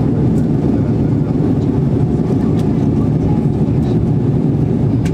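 Steady airliner cabin noise: a constant low rush of engines and airflow, with a few faint clicks.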